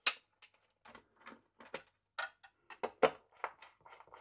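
Irregular light clicks and taps of an alarm cable being handled and fed through into the alarm panel housing. The sharpest tap comes just after the start and another about three seconds in.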